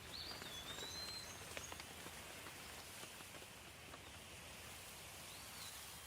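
Soft, steady rain, with scattered drops ticking and a few high whistled calls near the start and again near the end.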